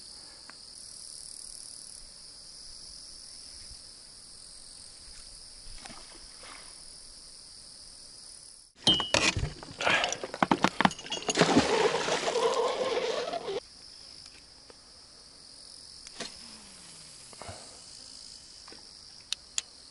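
Steady high chirring of crickets. About nine seconds in, a folding metal grapnel anchor knocks and clatters at the side of an inflatable boat and goes into the river with a splashing, rushing sound lasting a few seconds.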